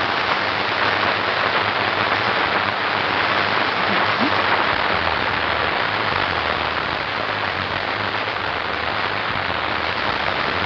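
A steady, loud, even hiss that stays unchanged throughout, with no speech over it.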